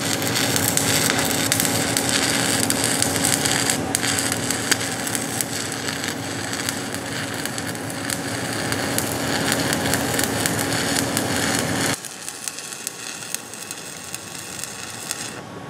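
Stick welding arc of a 7018 electrode laying a cap stringer bead on steel pipe at about 110 amps: a steady crackle and sizzle that drops to a quieter crackle about twelve seconds in.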